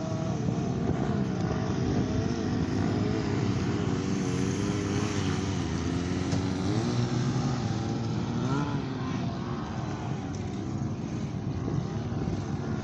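Sport-bike engines running, their revs rising and falling unevenly as riders hold wheelies, under a steady noisy rush.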